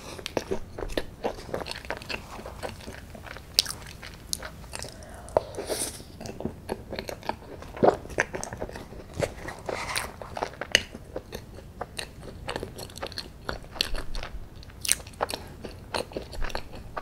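Close-miked mouth sounds of eating chocolate ice cream from a plastic spoon: irregular wet lip smacks, sucking and chewing clicks, with the spoon scraping and tapping in the paper cup now and then.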